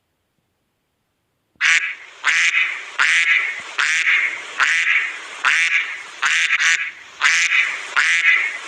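Duck quacking in a steady series of about eleven loud quacks, roughly one and a half a second, starting after a second and a half of silence.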